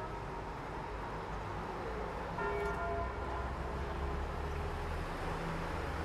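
A church bell striking once about two and a half seconds in and fading away, over the low rumble of street traffic that grows louder from then on.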